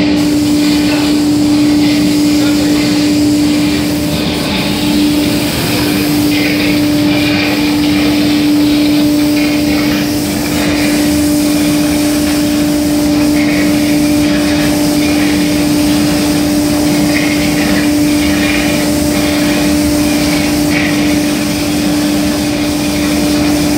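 Spray-booth machinery running with a loud, steady hum and a constant droning tone, with short bursts of higher hiss now and then.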